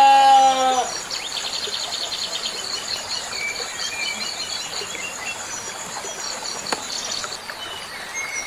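A goat bleats once, a drawn-out call that ends about a second in. After it, insects keep up a steady high trill, with short bird chirps over it.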